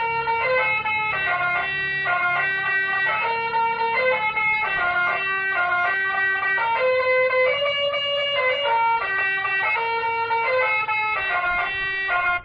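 60-watt telolet basuri horn module playing a multi-note horn melody: a quick run of stepped tones changing pitch every few tenths of a second, with a brief break at the very end.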